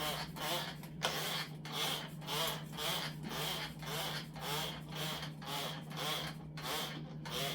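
Rhythmic scrubbing of the fridge's interior with a cloth wet with vinegar and hot water, back-and-forth strokes about twice a second, over a steady low hum.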